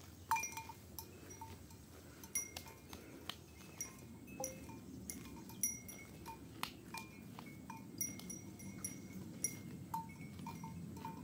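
Bells on grazing livestock clinking softly and irregularly, a few light metallic rings a second at a couple of fixed pitches, over faint low background noise.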